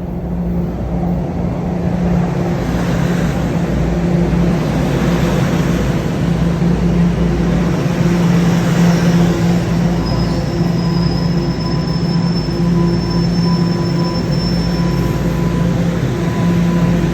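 Subway train running: a steady rumble with a constant low hum, and a thin, high wheel squeal from about ten seconds in, lasting around five seconds.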